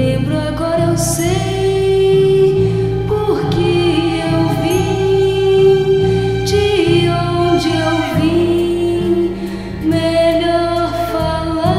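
Music: a song from a 1971 Brazilian telenovela soundtrack album, with long held melody notes sliding between pitches over a steady bass line.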